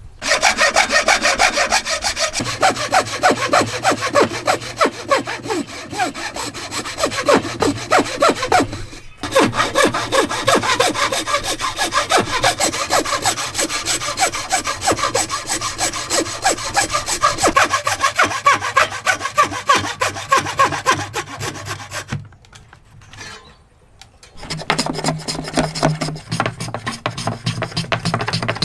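Hand saw cutting through wood in quick, even back-and-forth strokes. The sawing breaks off briefly about nine seconds in, stops for about two seconds near the end, then starts again.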